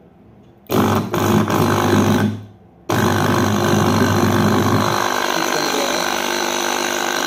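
Coffee vending machine's solenoid pump buzzing loudly when plugged in: the repaired pump runs. It buzzes briefly, cuts out for about half a second, then starts again and keeps running. The deeper part of the hum thins about five seconds in.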